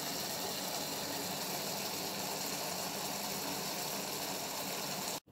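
A pot of black beans simmering, a steady hiss of bubbling liquid.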